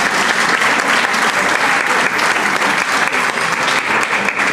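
Audience applauding: many hands clapping at once in a dense, steady patter that holds the same level throughout.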